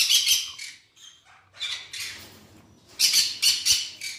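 Sun conures screeching: harsh, shrill squawks in three bursts, about a second or so apart.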